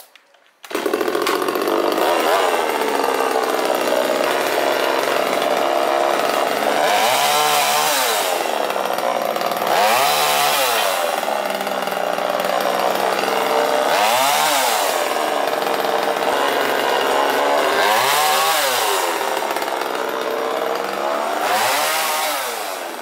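Small gasoline two-stroke chainsaw starting about a second in, then running at speed and revved up and down about five times as tree branches are cut.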